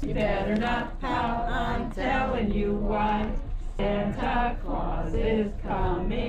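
Singing voices with music: a song sung in phrases, some notes held for about a second.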